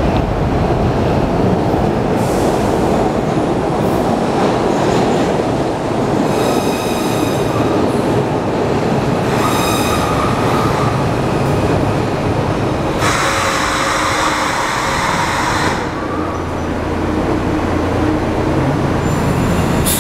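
SEPTA Broad Street Line subway train (Kawasaki B-IV cars) pulling into the station and braking to a stop, with a loud, continuous rumble of wheels on rail. High whining tones come twice, about six and ten seconds in, and a loud hiss about thirteen seconds in. Once it has stopped, a steady low hum is left.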